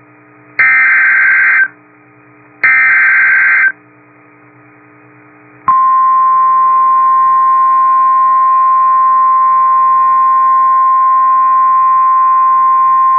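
NOAA Weather Radio Emergency Alert System activation through a weather radio receiver: the last two SAME data header bursts, each a harsh electronic warble about a second long and a second apart, then about six seconds in the steady single-pitch warning alarm tone starts and holds. It signals that a warning, here a severe thunderstorm warning, is about to be read. A low hum from the receiver runs underneath.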